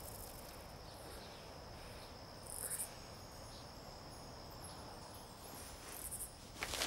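Crickets trilling in a steady, faint high tone, a night-time ambience. Two brief higher chirps come about two and a half and six seconds in.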